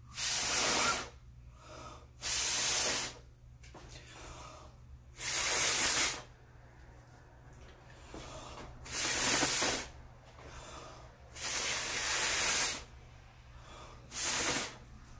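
A person blowing hard by mouth onto wet acrylic pour paint, pushing it across the canvas: six forceful puffs of breath, each about a second long, every two to three seconds.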